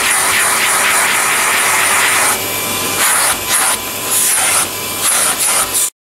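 Canister vacuum cleaner running, its hose nozzle sucking dust off and rubbing over the pleated filter of a cordless handheld vacuum. The rush of air changes as the nozzle is pressed and moved over the filter, and the sound cuts off suddenly near the end.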